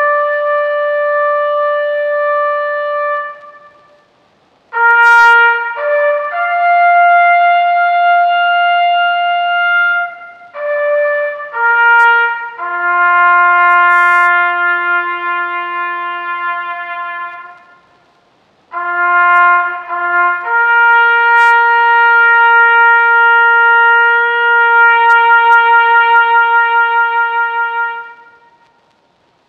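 Solo brass instrument playing a slow bugle-style call: a few long held notes joined by short pick-up notes, with two brief pauses. It ends on a long note that wavers, then fades out just before the end.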